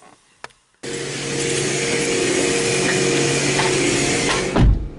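Self-serve car wash equipment running: a loud, steady hiss over a motor hum that starts abruptly about a second in. It cuts off near the end with a low thump.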